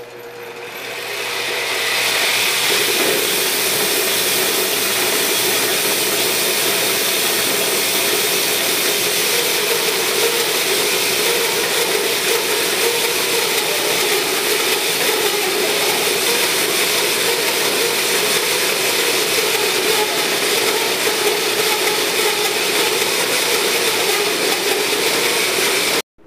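Power saw running and cutting through a yellow pine log, a steady loud whine and rush of cutting noise that builds over the first couple of seconds and cuts off suddenly near the end.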